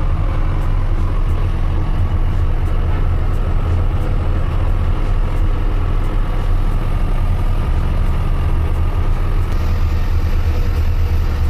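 Truck's diesel engine running steadily, heard from inside the cab while driving: a low, even rumble.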